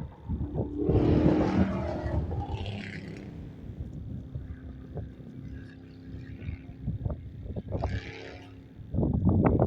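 A vehicle crossing the road bridge overhead: a hum that swells about a second in and fades over the next several seconds. Near the end, rough gusts of wind buffet the microphone.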